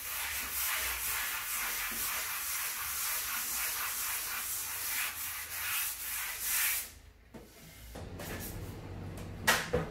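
Sanding sponge rubbing lightly back and forth over a chalk-painted wooden drawer front: a very light final polish of the dry paint to smooth out its slight texture. The rubbing stops about seven seconds in, and a knock follows near the end.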